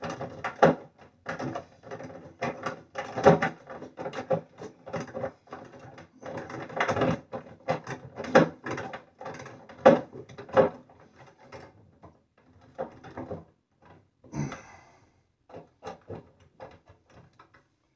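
Screw being driven by hand into a wooden chest lid to fasten a soft-close lid stay: a run of irregular clicks and knocks from the hand tool and the metal fitting, thinning out over the last few seconds.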